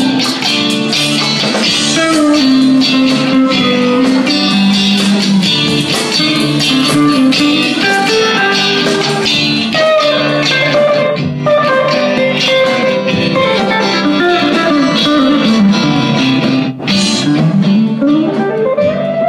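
Live blues band playing an instrumental passage: electric guitars over bass guitar. Near the end a lead line bends down in pitch and slides back up.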